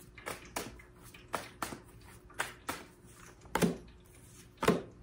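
A deck of tarot cards being handled and shuffled by hand: a string of short taps and slaps of the cards at uneven intervals, the two loudest a little past halfway and near the end.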